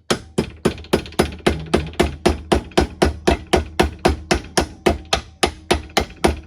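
Ball-peen hammer striking a small piece of metal in quick, steady blows, about four a second, each with a short metallic ring: the piece is being beaten into a half-moon shape.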